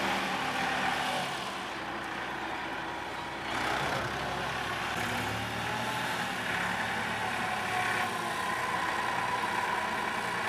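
Motor grader's diesel engine running steadily, with a whine that wavers in pitch.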